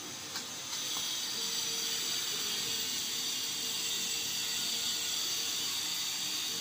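A steady high-pitched mechanical whir with a hiss, which steps up in level about a second in and then holds.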